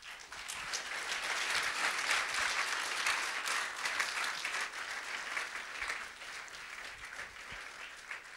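Audience applauding: the clapping swells over the first two seconds, holds, then slowly thins out.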